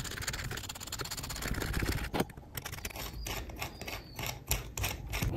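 Threaded steel rods and a 3D-printed plastic part being handled and fitted together by hand. A rapid run of fine clicks lasts about two seconds, then comes a series of separate clicks and taps.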